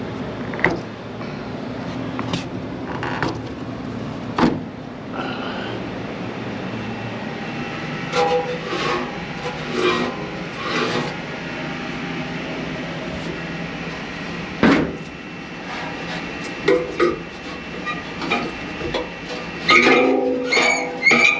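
PoolPak rooftop unit's fan running on a failed bearing: a steady hum broken by repeated metallic knocks and stretches of high squealing, the sign of a bearing so worn that the fan runs up against its blade.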